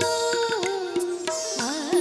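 Indian wedding folk music (lagan geet): a held, wavering melody line over regular hand-drum strokes.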